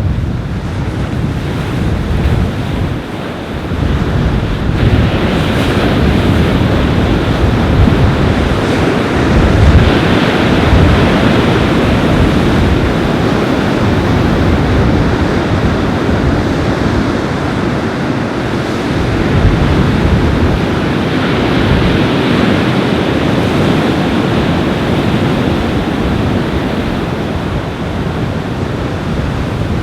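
Surf breaking and washing up a beach in strong wind, with wind buffeting the microphone. The rush swells louder in surges every several seconds as waves come in.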